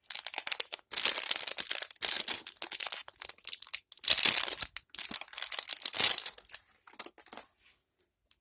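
Plastic packaging crinkling and rustling as it is handled and opened by hand, in several bursts that thin out and stop near the end.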